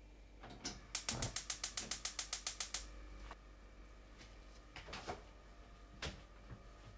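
A small mechanism clicking rapidly and evenly, about sixteen clicks at some nine a second like a ratchet, followed by a few separate single clicks.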